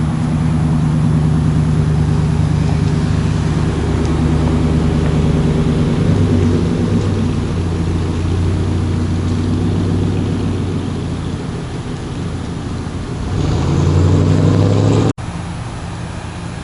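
A motor vehicle's engine running steadily, its pitch shifting a little partway through; it grows louder near the end and then cuts off abruptly.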